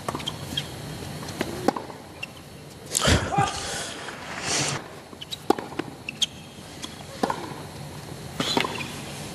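Tennis balls struck with sharp pops and bouncing on a hard court during rallies. About three seconds in, a burst of crowd applause and cheering runs for nearly two seconds, then the hits resume.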